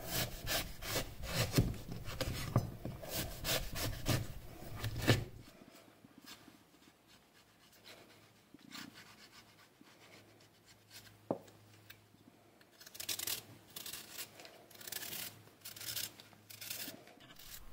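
Kitchen knife scraping seeds and stringy pulp out of a raw pumpkin and paring off its skin: repeated short rasping strokes, a quieter stretch in the middle with a single click, then more strokes.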